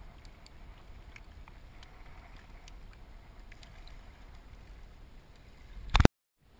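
Water lapping and splashing against the hull of a drifting small boat, over a steady low rumble of wind on the microphone, with faint scattered drips and splashes. A loud knock comes near the end, then the sound cuts off abruptly.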